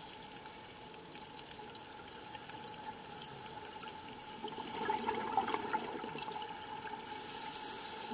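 Underwater sound of a scuba diver breathing through a regulator: a hiss of inhalation, then a crackling gush of exhaled bubbles about five seconds in, with another hiss near the end. A steady faint hum sits under it.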